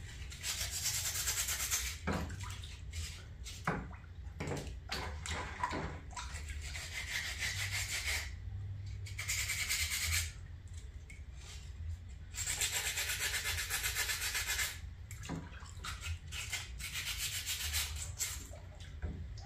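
Abrasive rubbing on a cast white-cement planter, in strokes and bursts of one to three seconds with short pauses, as the burrs are smoothed off the piece.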